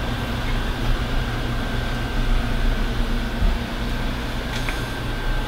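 Steady low mechanical hum, like an air conditioner or fan running, with a faint thin high whine over it.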